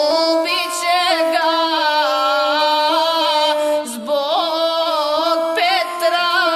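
Gusle, the single-string bowed Montenegrin folk fiddle, playing a held melody decorated with quick trills and wavering ornaments, with a brief break about four seconds in.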